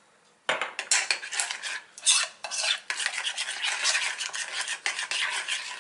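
A metal spoon stirring thick hummus in a mixing bowl, scraping and clinking against the bowl's sides in quick, uneven strokes as the salt is mixed in, starting about half a second in.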